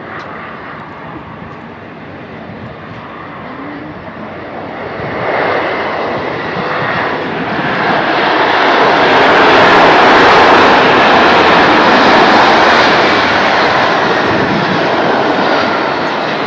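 Embraer jet airliner's turbofan engines spooling up into reverse thrust on the landing roll: a steady rushing roar that swells from about five seconds in, is loudest in the middle, then slowly eases as the plane slows.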